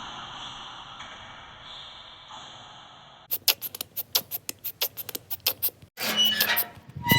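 Edited remix of a squeaky door-slam sound effect. A faint hiss comes first, then from about three seconds in a rapid, irregular run of sharp clicks. From about six seconds in the sound turns louder and denser, chopped squeaks with short high whistling tones.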